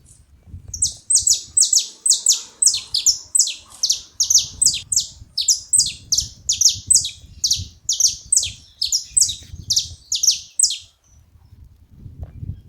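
Saffron finches calling: a rapid run of sharp, high, downward-sweeping notes, about three or four a second, which stops shortly before the end.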